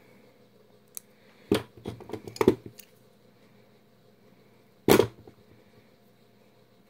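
Short, sharp clicks of small jewelry hand tools working wire: red-handled flush cutters snip the wire end and pliers are picked up and handled. A cluster of clicks comes between one and three seconds in, and a single louder knock about five seconds in.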